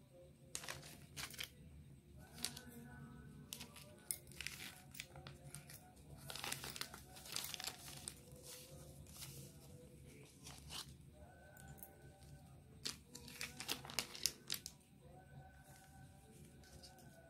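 Shiny plastic mask packets crinkling and rustling as they are handled and a KF94 face mask is slid out, in irregular crackly bursts that die down near the end.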